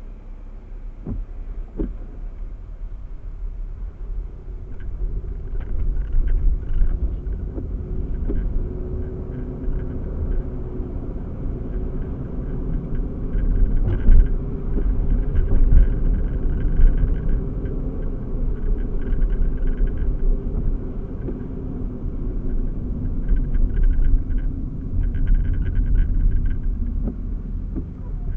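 Heavy engines of construction machinery and traffic running with a steady low rumble and a droning tone, with scattered knocks and brief higher-pitched squeals around the middle and again near the end.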